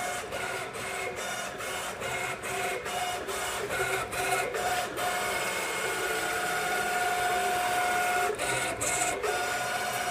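Aerotech 1135 DC servo motors driving a small CNC mill's three axes in coordinated moves: a steady whine in several tones, broken by brief pauses as the moves change. The pauses come several times a second through the first half, then the whine holds for about three seconds before a few more quick breaks near the end.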